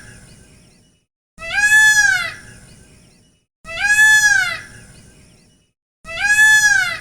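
Peacock calling: a loud wail that rises and then falls in pitch, heard three times a little over two seconds apart, each followed by a short fading echo.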